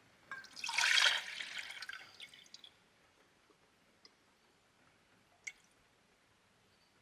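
A brief splash of water lasting about two seconds, followed a few seconds later by a single sharp click.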